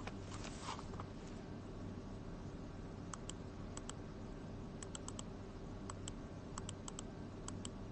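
Clicking at a computer: short, sharp clicks in small groups of two to four, starting about three seconds in, over a faint steady hum.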